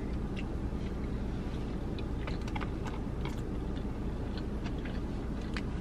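A person chewing a mouthful of fried chicken sandwich: scattered faint mouth clicks and smacks over a steady low hum.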